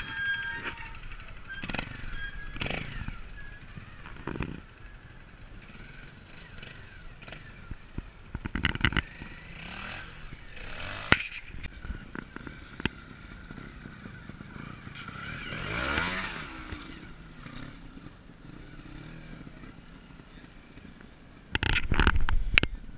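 Trials motorcycle engines revving in short blips over a rough woodland section, mixed with knocks and scrapes of the bikes on roots, rocks and mud. About two-thirds of the way through, one engine's pitch rises and falls. Near the end comes a short, loud burst, the loudest moment.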